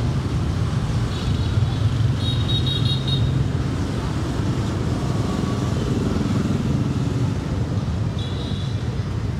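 City street traffic: motor scooters running and passing close by over a steady low rumble, with one engine passing most clearly about six seconds in.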